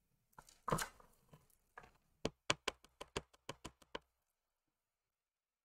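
A soft knock just under a second in, then a quick run of about nine light taps: a clear acrylic stamp block being handled and tapped against a plastic ink pad to ink the stamp.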